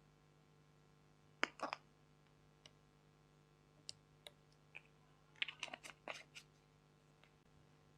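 Slime being handled and mixed, giving sharp sticky clicks and pops: a pair about one and a half seconds in, scattered single ticks, then a quick run of clicks near the end.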